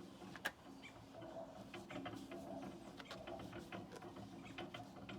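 Paintbrush dragging varnish over sanded wood, a faint run of irregular scratchy clicks with one sharper tap about half a second in, over a steady low hum.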